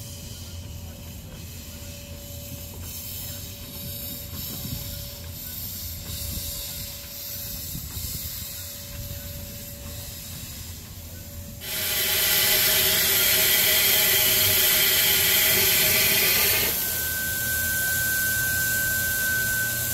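Small narrow-gauge steam locomotive: a low rumble at first, then about twelve seconds in a loud steam hiss starts suddenly and lasts about five seconds, easing to a quieter hiss with a steady high whine.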